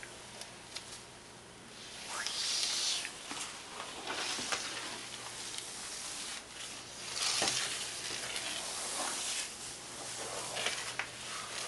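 A towel dragged across a hard floor with a cockatoo riding on it: fabric sliding and rubbing on the floor in several pulls, starting about two seconds in.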